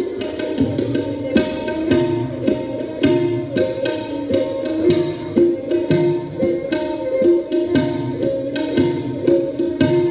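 Dilruba, a bowed Indian string instrument, playing a classical raag melody over quick tabla strokes. Near the end the dilruba settles into one long held note.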